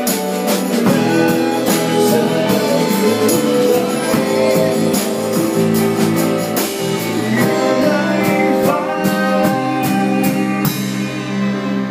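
Band music with a string section: violins and cello bowing sustained lines over drums and cymbals. The drums and cymbals stop about ten and a half seconds in, leaving the strings.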